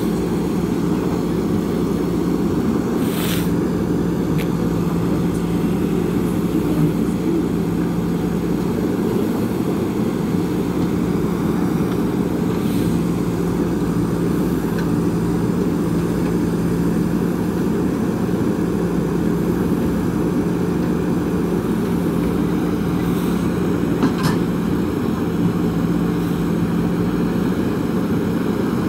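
JCB backhoe loader's diesel engine running steadily as the backhoe arm digs, a constant low drone. Two brief knocks stand out, about three seconds in and again later on.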